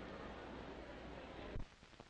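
Faint steady hiss and low hum of an old broadcast soundtrack, cut off by a soft thump about one and a half seconds in, after which there is near silence.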